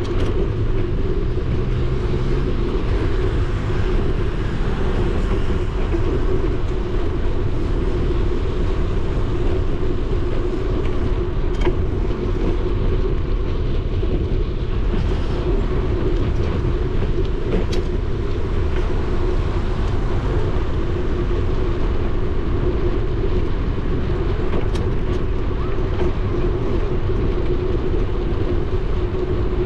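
Steady low rumble of a bicycle rolling along a paved cycle path, tyre noise mixed with wind on the microphone, with a steady hum and a few light ticks.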